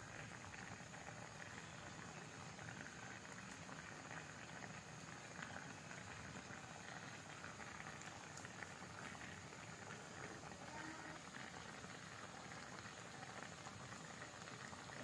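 Water boiling around whole long eggplants in a pan: a faint, steady bubbling.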